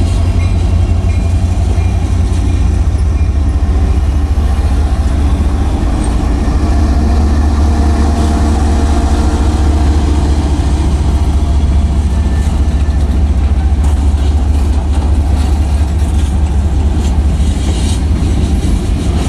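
Union Pacific manifest freight train's cars rolling past: covered hoppers and tank cars giving a loud, steady rumble of wheels on rail, with sharper clicks in the last few seconds.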